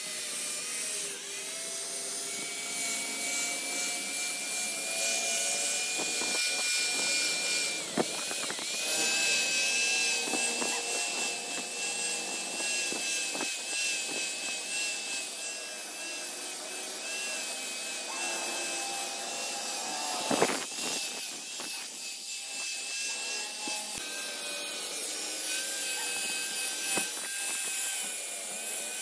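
Angle grinder with an abrasive disc running steadily with a high whine and a rasping hiss as it grinds the teeth of a truck differential's spiral bevel pinion. The whine dips briefly twice, about 8 seconds in and again about 20 seconds in, as the disc is pressed harder into the steel.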